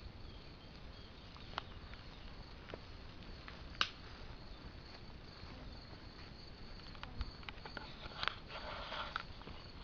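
Faint rustling and a few scattered sharp clicks from someone walking down through long grass while holding the camera, over a steady low hiss.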